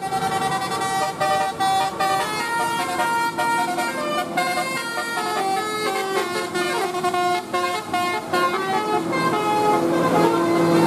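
Bus telolet horn (a basuri-type multi-tone air horn) playing a quick melody of short stepped notes, ending on a longer held low note.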